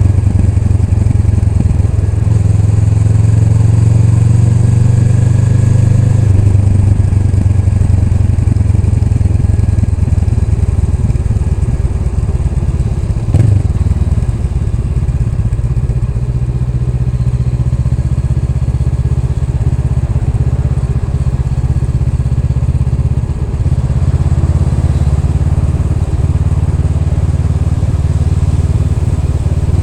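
Honda Rebel 500's parallel-twin engine running steadily while riding. Its drone drops lower about six seconds in, and a single sharp knock sounds about halfway through.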